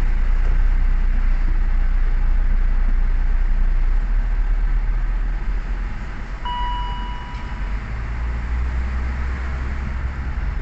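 2004 BMW X5 on a test drive after a transmission fluid and filter change, heard from inside the cabin: steady low engine and road rumble. About six and a half seconds in, a single electronic warning chime sounds for just over a second.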